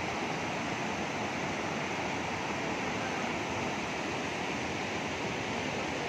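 Fast, muddy river water rushing over rocks and a low stone weir, churning into white water: a steady, even rushing noise.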